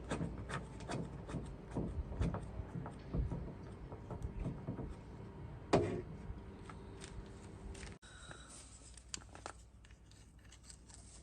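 Socket ratchet clicking in irregular short runs as a 10mm nut is undone, mixed with small knocks and rubs of the plastic door-handle parts; one sharper click about six seconds in, then the sounds grow fainter.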